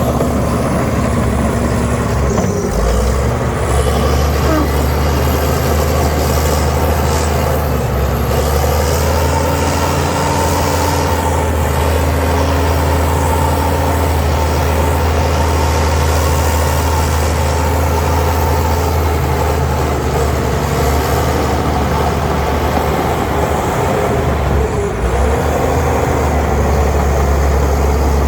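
Heavy diesel engine of earthmoving machinery running steadily with a deep, even drone, its low note briefly dropping about two and a half seconds in and again near the end.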